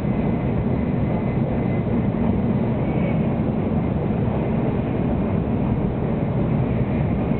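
A 700 Series Shinkansen train running at speed, heard from inside the passenger cabin: a steady low rumble of running noise that does not change.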